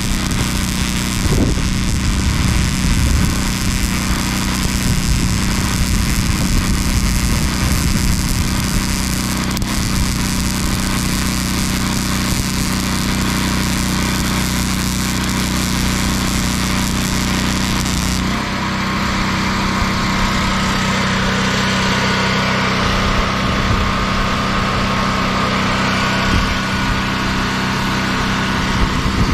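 Crackling hiss of a welding arc as a steel pole is welded at its base, over the steady running of a small engine. About two-thirds of the way through the crackle drops away and the engine note shifts, then runs on steadily.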